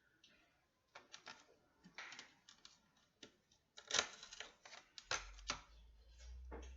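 Irregular small clicks and taps of hands working with dry Cheerios, breaking them in half and setting them on the snack, loudest about four seconds in.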